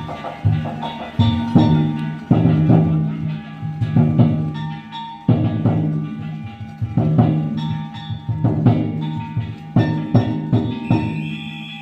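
Danjiri festival music: a large taiko drum beaten in a driving, uneven rhythm with small hand gongs clanging and ringing over it. A high steady tone enters near the end.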